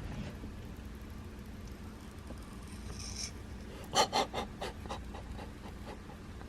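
Protective plastic film being peeled off a handheld tuner's screen: a faint rasping hiss about three seconds in, then a quick run of small crackling clicks.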